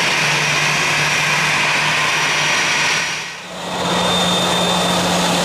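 Airbus A321-211's CFM56 turbofan engines running at low taxi power: a steady jet whine and rush. The sound fades out and back in about three seconds in, then carries on with a thin high whine.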